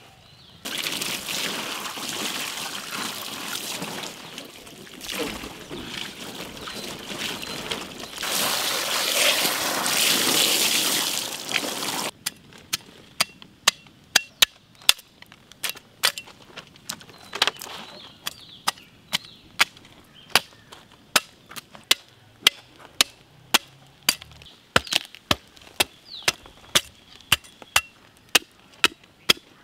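Water pouring and splashing for about the first twelve seconds. Then a cleaver chopping into a large yellowfin tuna: sharp, short knocks at roughly two a second.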